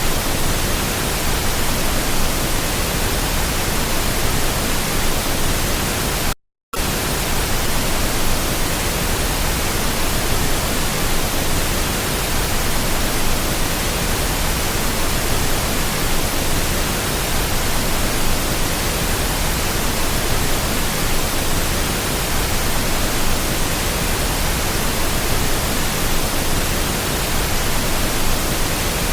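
Steady rushing water noise, even from low to high pitches with no distinct events, broken by a brief drop-out to silence about six and a half seconds in.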